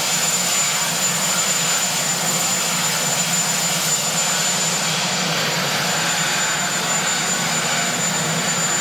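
Marine One, a Sikorsky VH-3D Sea King helicopter, running on the ground: a steady, loud rush of turbine engines and rotor that holds level throughout.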